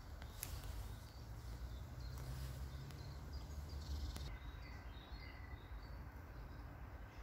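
Quiet outdoor background: a steady low rumble, a few sharp clicks in the first half, and faint short bird chirps in the second half.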